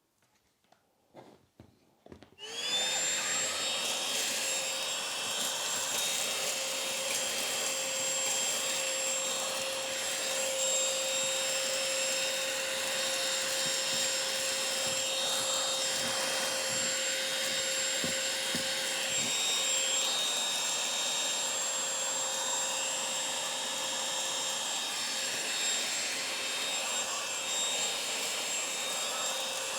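A few faint handling clicks, then about two and a half seconds in the Oraimo UltraCleaner H3 cordless handheld vacuum cleaner switches on, spins up quickly and runs steadily with a constant motor whine over the rush of its airflow.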